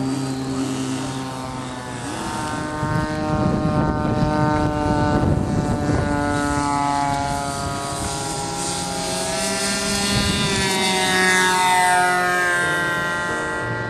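Hobbico NexStar RC trainer plane's engine and propeller running at high power. The pitch wavers and shifts as the plane takes off and flies, and slides downward near the end as it passes by.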